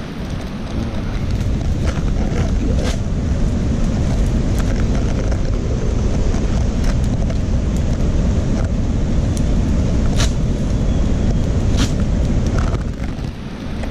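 Wind buffeting the microphone: a loud, steady low rumble, with a few scattered sharp clicks.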